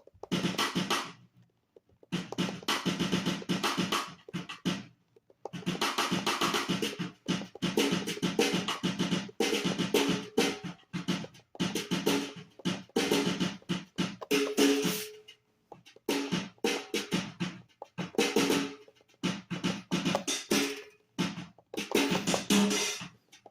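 Sampled software drum kit triggered from a Donner Starrypad MIDI pad controller: bursts of rapid drum hits, snare and kick among them, separated by short pauses.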